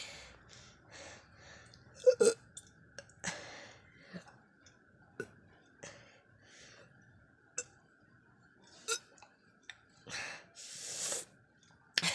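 A person making short coughing, burping and retching throat sounds, spaced out with pauses. The loudest comes about two seconds in, and a longer breathy one follows near the end.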